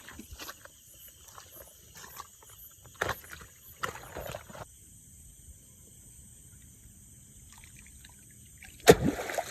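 Night insects keep up a steady high chirring, with scattered short rustles and knocks in the first half. Near the end comes one sudden loud thud.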